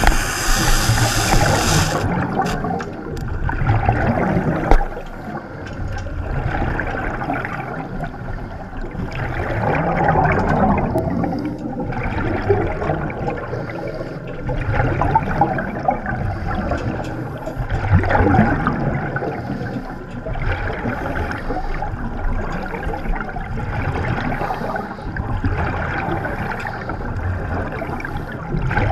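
Underwater bubbling and gurgling from a diver's exhaled air, swelling in surges every few seconds over a steady low rumble.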